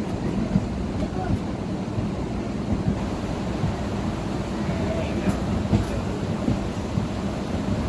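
Electric multiple unit (EMU) local train running, heard from on board: a steady low rumble with the wheels knocking at irregular intervals over the rail joints.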